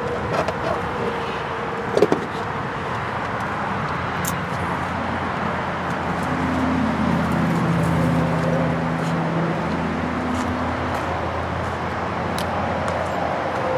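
Road traffic: a steady rush of passing vehicles, with one vehicle's engine hum swelling and fading in the middle, and a few sharp clicks.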